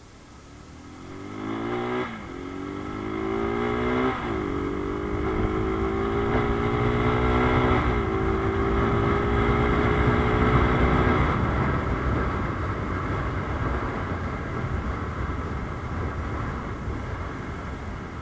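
Rusi Gamma 200 motorcycle engine and exhaust accelerating hard from a standstill. The revs climb and drop as it shifts up about four times in the first eight seconds, then hold steady. After that the engine note fades under a steady rush of wind noise.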